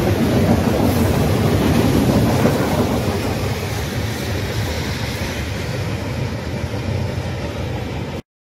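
Freight train cars rolling past at close range: a steady rumble of steel wheels on the rails that eases slowly as the last cars go by, then cuts off abruptly near the end.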